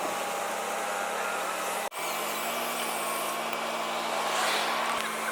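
Steady machine noise with a low hum running through it, broken by a brief dropout about two seconds in.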